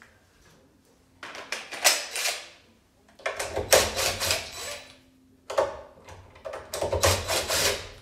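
DeWalt cordless driver backing out the screws that hold a door-lock boring jig to the door edge, in three short runs about a second, three seconds and five and a half seconds in.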